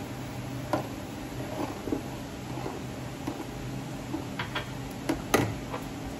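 Metal ladle stirring a thickening starch-bound sweet soup in a nonstick pan, making scattered light knocks and scrapes against the pan, the sharpest about five seconds in. A steady low hum from the induction cooktop runs underneath.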